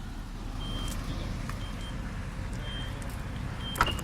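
Power tailgate on a Mazda CX-5 in motion: its warning beeper sounds a short high beep about once a second over a low steady hum, and a sharp click comes near the end.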